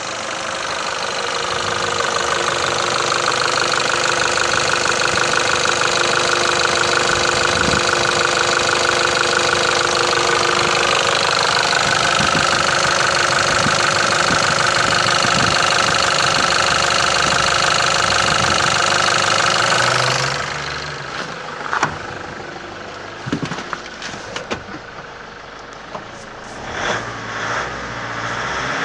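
Nissan ZD30 3.0-litre four-cylinder diesel running with a steady diesel knock, heard close up in the open engine bay. About two-thirds of the way through it drops in level and turns muffled, as heard from inside the cab, with a few sharp knocks.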